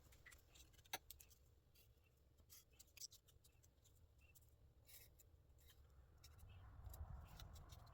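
Faint, quiet hand work: scattered light clicks and, near the end, a soft scratching, as a template is traced out onto sheet metal.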